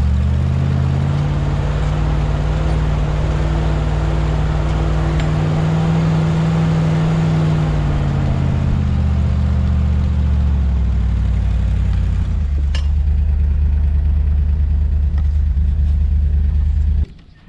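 Jeep engine running on the move, its note climbing as it pulls, then easing back and settling into a steady low drone. The sound cuts off abruptly near the end.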